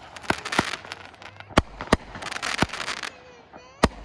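Consumer fireworks going off: a string of sharp bangs a few tenths of a second to a second apart, with a burst of crackling about halfway through and a thin gliding whistle near the end.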